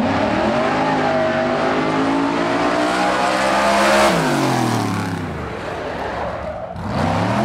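Engine of a firefighters' drill-team racing rig, an open-wheeled race car carrying a ladder crew, accelerating hard down the course. Its pitch climbs and holds high, is loudest as it passes about four seconds in, then falls away as it goes by and slows. Near the end the engine revs up again briefly.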